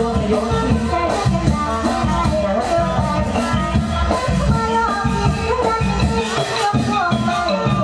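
Band music for a Thai likay courtship song: a steady beat with a shaker-like rattle under a wavering melody line.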